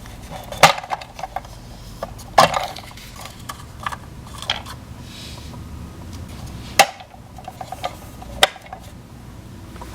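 Small hard plastic toy pieces clicking and clacking as they are handled, with four sharper clacks spread through and lighter ticks between them: play food being put into a toy refrigerator.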